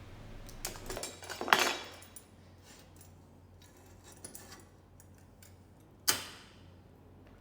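Metal clinks and knocks as a metal plate and tools are handled and set down: a few light knocks and a ringing strike in the first two seconds, then one sharp clank about six seconds in that rings briefly.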